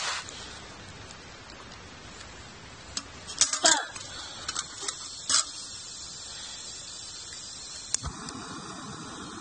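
Clinks and knocks of a metal cooking pot being handled on a camping stove, then about eight seconds in a sharp pop as the gas burner lights, followed by the burner's steady hiss.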